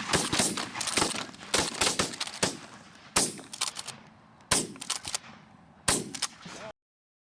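Volley of shotgun fire from several hunters shooting at geese: a quick run of overlapping shots, then a few single shots spaced a second or more apart. The sound cuts off abruptly near the end.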